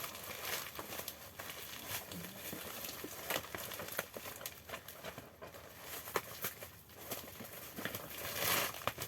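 Parcel wrapping being crinkled and pulled open by hand, with irregular crackles and clicks and a louder rustle near the end.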